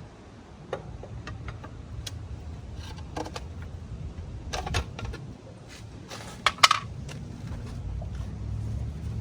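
Lug wrench and socket on a car's wheel lug nuts as they are loosened: scattered metallic clicks and knocks at uneven intervals, with two sharp ones a little past halfway, over a low steady rumble.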